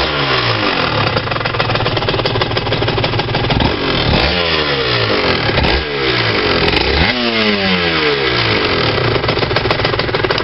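Aprilia RS 125's Rotax 122 two-stroke single-cylinder engine being revved in three quick throttle blips, the revs falling back after each. It has a metallic clinking rattle, the noise under investigation.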